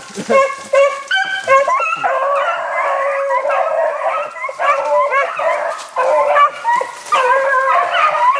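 A pack of beagles baying together, many hound voices overlapping in a continuous chorus of howls and bawls: the pack running a swamp rabbit.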